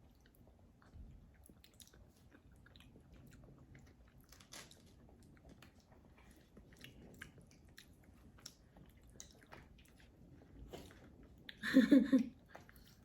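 Close-miked chewing of MRE cherry blueberry cobbler: soft, wet mouth clicks and small crunches. About twelve seconds in there is a brief, louder burst of voice.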